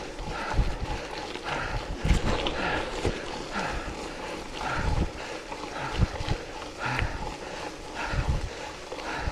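A cyclist breathing hard under race effort, roughly one heavy breath a second, over wind rumbling on the microphone.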